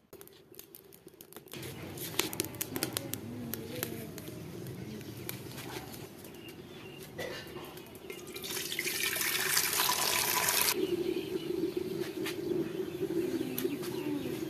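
Water poured from a steel mug into an aluminium pot, a splashing pour lasting about two seconds, starting a little past halfway. Around it, scattered crackling clicks and a steady low hum.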